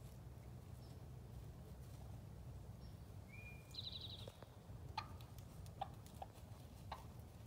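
Quiet field ambience with a steady low rumble. About three seconds in, a small songbird calls once: a short held note, then a fast high trill. In the second half come a few scattered sharp ticks.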